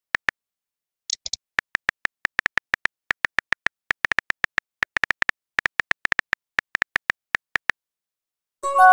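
Phone keyboard typing sounds: a rapid, uneven run of short pitched ticks, one per keystroke, pausing briefly before the end. A brief high blip sounds about a second in, and a short chime of several tones near the end, as messages are sent.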